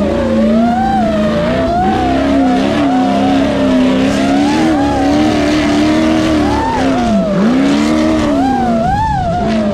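An Ultra4 off-road race car's engine revs up and down, its pitch wavering as the car climbs through rock and dirt. There is a sharp drop and recovery in revs about seven seconds in. The tyres spin and skid in loose dirt underneath.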